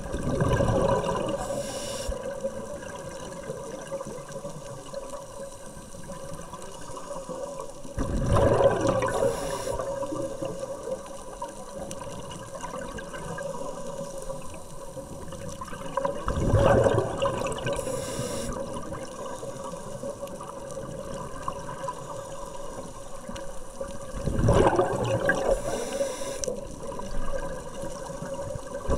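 Scuba diver's exhaled bubbles gushing from the regulator, heard underwater: four surges about eight seconds apart, with a quieter hiss and a faint steady hum between breaths.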